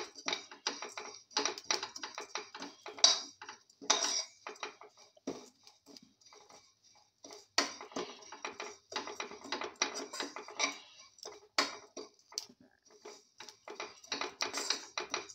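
Metal spatula scraping and clinking against a steel pan, with dry vermicelli strands rustling, as the vermicelli is stirred while it roasts. The strokes come quick and irregular, with a short lull about six seconds in.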